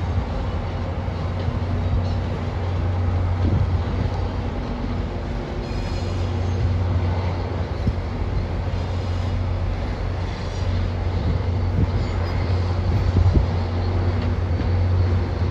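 A large engine running with a steady low hum and several faint steady tones above it, and wind rumbling on the microphone.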